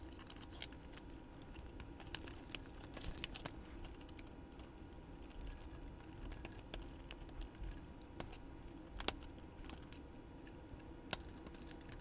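Small plastic clicks and taps of a Tyco model locomotive's shell, chassis and trucks being handled and pressed together during reassembly: scattered sharp clicks, the sharpest about nine seconds in.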